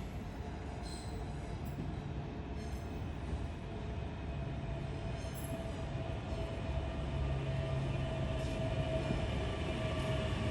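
Electric suburban train running, heard from inside the carriage: a steady low rumble with a faint motor whine, growing a little louder near the end.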